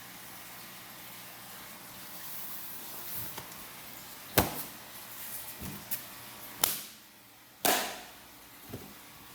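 Faint steady hiss broken by three sharp knocks in the second half, the last one trailing off briefly, with a few smaller ticks between.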